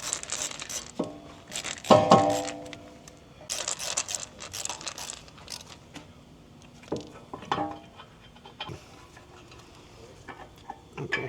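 Metal tools and brake parts clinking and clanking during front brake work, with a louder ringing clank about two seconds in, over light background music.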